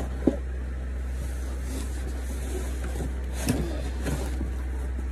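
Cardboard monitor box being handled and opened: a sharp knock about a third of a second in and a smaller thump about three and a half seconds in, over a steady low hum.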